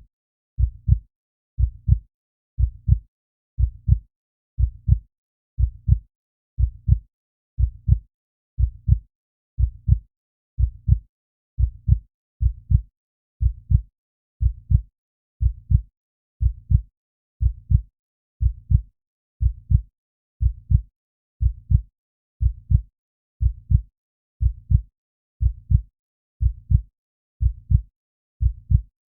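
Heartbeat sound: a slow, steady run of deep double thumps (lub-dub), about one beat a second.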